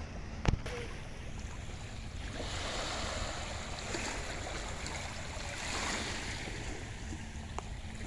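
Small waves lapping onto a pebbly shore, a hissing wash that swells from about two seconds in and eases off, over a low rumble of wind on the microphone. A single sharp knock about half a second in.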